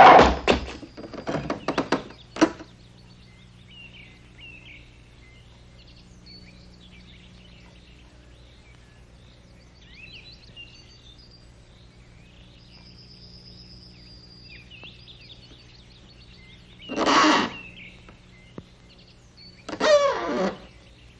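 Faint birds chirping over a steady low hum, after a few short knocks at the start. Near the end come two short louder sounds, the second with a wavering pitch.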